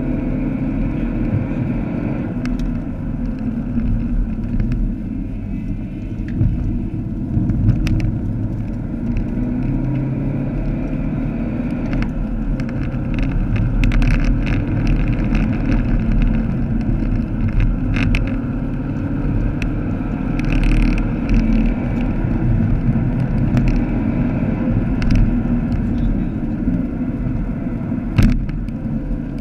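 Vauxhall Astra VXR's 2.0-litre turbocharged four-cylinder engine running at speed, heard from inside the cabin with tyre and road noise. Scattered sharp clicks and knocks come through, and a sharp knock near the end is the loudest moment.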